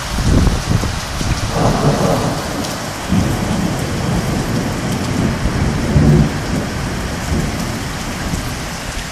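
Heavy rain pouring steadily with thunder rumbling through it in uneven swells.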